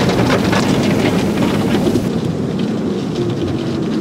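Automatic car wash spraying water and soap onto the car, heard from inside the cabin as a dense spatter like heavy rain on the body and windows. The high hiss of the spray drops away about halfway through, leaving a lower wash of noise.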